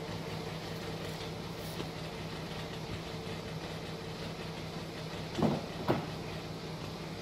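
Volkswagen Golf Mk5 R32's 3.2-litre VR6 engine idling steadily, heard at its twin exhaust tips. Two brief knocks come about five and a half and six seconds in.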